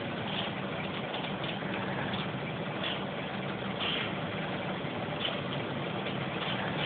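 Scania truck's diesel engine running steadily at low revs as the truck reverses slowly with a drawbar trailer.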